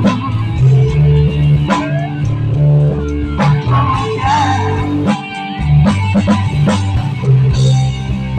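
A band playing an instrumental passage of a rock-pop song: an electric guitar melody over bass guitar and drums.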